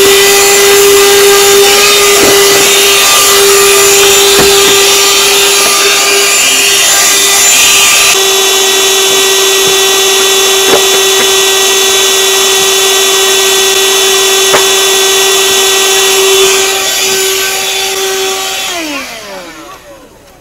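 Handheld vacuum cleaner running steadily while cleaning truck floor carpet, its motor spinning up at the start and winding down with a falling pitch near the end. A few brief knocks as the nozzle is worked over the floor.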